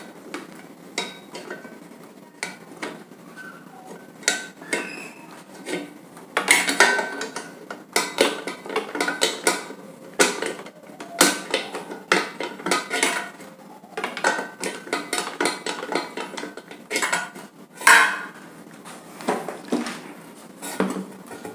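Pliers and sheet-metal fan blades clinking against the metal hub of an exhaust fan as the blades are worked loose: irregular sharp metallic clicks, knocks and scrapes.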